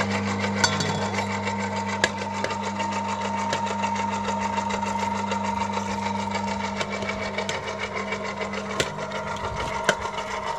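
Electric tomato strainer running steadily with a low motor hum as it presses tomatoes through its perforated screen, with a few sharp clicks.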